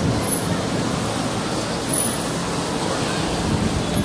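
Street traffic noise: a steady wash of passing cars and other vehicles on a busy city street, picked up by a camcorder's built-in microphone.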